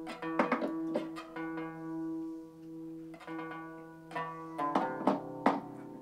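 Kanonaki, the Greek qanun, being tuned: single strings plucked one after another, a dozen or so plucks, over a low note that keeps ringing under them.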